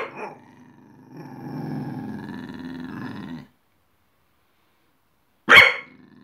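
Staffordshire bull terrier growling low and steadily for a couple of seconds, between sharp single barks at the start and about five and a half seconds in.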